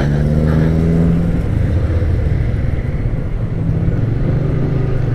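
Yamaha Vixion motorcycle's single-cylinder engine running under way. The revs ease down over the first second and a half as the throttle closes, then hold steady at a low, even note.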